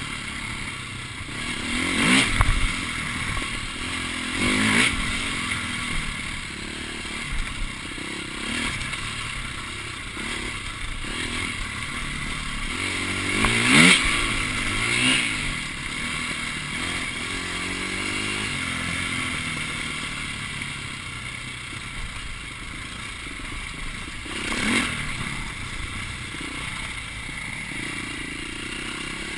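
Off-road motorcycle engine heard from on board the bike, running along a trail with repeated short bursts of throttle where the pitch rises, about five in all, the strongest about fourteen seconds in.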